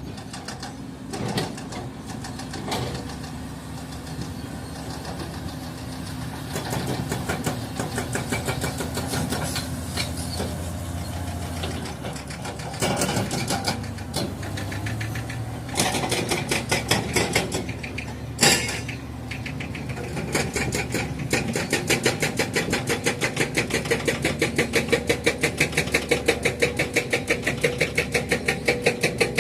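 Heavy diesel engine running, with an even knocking pulse that grows louder and more regular in the second half. Two sharp metallic clanks come near the middle.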